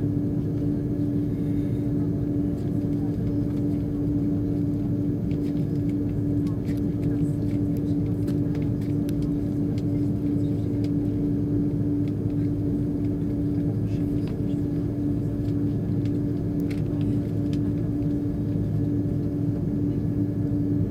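Airbus A330 cabin noise while taxiing: the engines run at low thrust with a steady hum over a low rumble.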